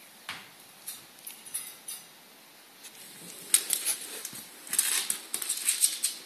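Ferret moving in a fabric pet carrier and stepping out onto a wooden floor. There are a few light clicks at first, then rustling and scrabbling from about halfway.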